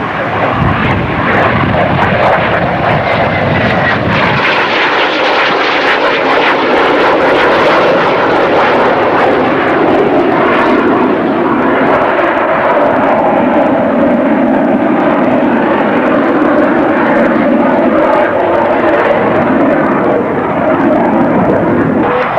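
Jet fighter's engines heard loudly as it flies a display pass and turns, a dense rushing jet noise with a falling whine in the first few seconds and a deep rumble that drops away about four seconds in.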